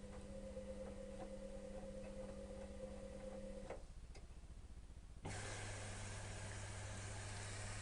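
Electrolux EWS 1045 washing machine mid-wash: the drum motor runs with a steady hum and faint ticking, stops about four seconds in, a couple of clicks follow, and a second later a steady hum with rushing water starts.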